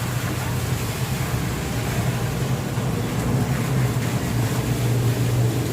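Steady low mechanical drone, even and unbroken, like an engine or motor running.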